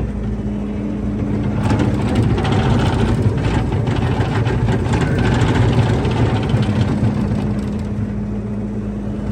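Bobcat T590 tracked skid steer's diesel engine running, growing louder and rougher for a few seconds in the middle with some clattering, then settling back to a steady run near the end.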